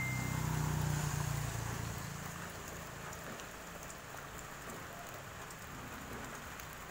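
Heated tyre regrooving tool cutting a groove into tyre rubber: a steady faint hiss, with a low hum that fades after the first couple of seconds.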